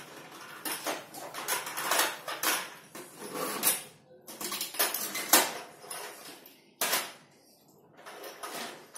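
Hard plastic Paw Patrol toy vehicles clattering and clicking as they are handled and set onto a plastic toy truck, in irregular knocks and short scrapes, with the sharpest click a little past the middle.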